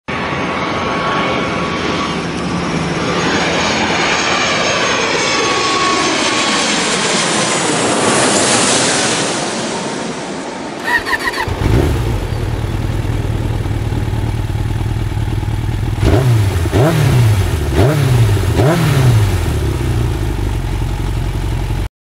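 A long rushing whoosh that swells and sweeps in pitch, then about halfway a motorcycle engine comes in, idling, and is revved in four quick blips near the end.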